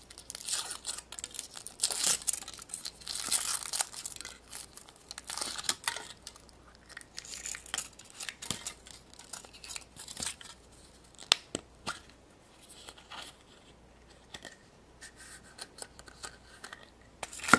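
Foil wrapper of a Kinder Surprise chocolate egg crinkling and tearing as it is peeled off. It is followed by a few sharp clicks and snaps as the chocolate shell and the yellow plastic toy capsule are handled and opened.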